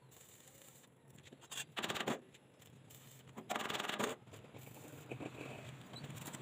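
Electric arc welding crackling in two short bursts, each about half a second, as tack welds are struck on the steel frame of a tricycle sidecar.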